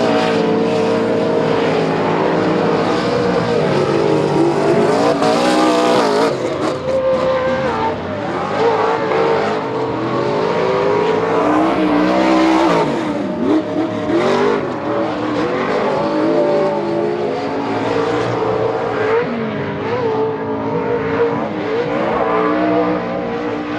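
800 hp Pro 2 short-course race truck's Kroyer Racing engine at full race speed, screaming as it revs hard. Its pitch climbs and drops again and again as the throttle opens and lifts.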